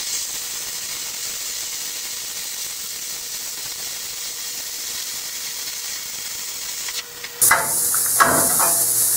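Air plasma cutter cutting a curve through 1/8-inch steel plate: a steady hiss of the arc and compressed air with a faint steady tone, stopping about seven seconds in. Then metal scraping and clattering as the cut-off steel piece is pulled free.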